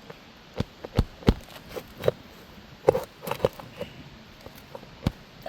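A staple being worked out of an asphalt roof shingle: an irregular string of sharp clicks and knocks with short scrapes between them, as metal meets the staple and the shingle.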